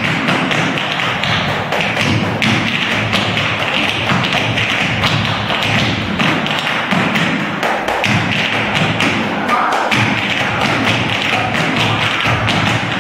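Tap shoes striking a stage floor in fast, dense rhythmic patterns of tap dancing.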